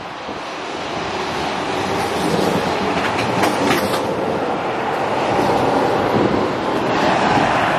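Helsinki metro train (M300-series unit) running past close by: a steady rolling rumble from the wheels on the rails that builds over the first second and then holds, with a few sharp clicks a little over three seconds in.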